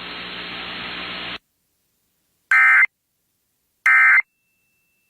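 Radio hiss that cuts off about a second and a half in, then two short bursts of EAS end-of-message data tones, a harsh two-tone digital warble, about a second and a half apart, marking the end of the alert.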